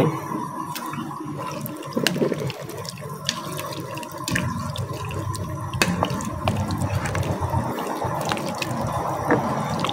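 Silicone spatula stirring pucuk manis leaves and oyster mushrooms in a pot of clear watery broth: sloshing, splashing liquid with scattered light taps of the spatula against the pot.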